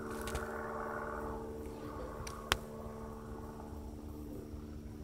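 Steady mechanical hum from a running machine, several held tones over a low rumble, with a single sharp click about two and a half seconds in.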